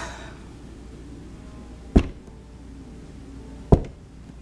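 Slow knocking on a door: two single knocks less than two seconds apart, over a faint low hum.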